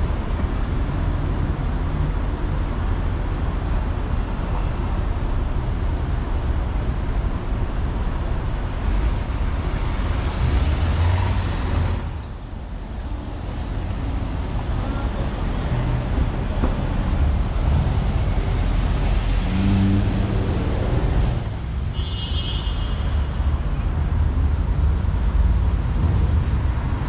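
City street traffic: a steady rumble of cars and other vehicles passing, easing off briefly twice, with a short high-pitched squeal about 22 seconds in.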